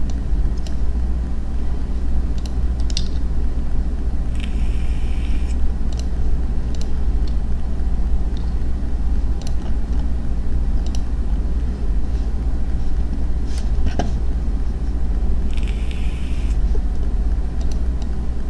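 Steady low rumble of background noise under a desktop screen recording, with scattered mouse and keyboard clicks.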